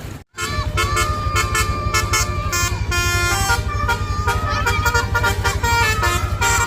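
Basuri multi-tone bus air horn playing a quick telolet tune: several horn notes sound together and switch pitch every fraction of a second, starting just after a brief silent gap. Under it runs a steady, evenly pulsing low rumble.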